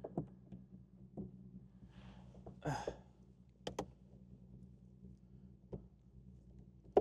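Car engine idling steadily, heard inside the cabin, with scattered clicks and knocks from a camera mount being handled on the dashboard, two quick clicks close together at about four seconds, and a short rustle around three seconds.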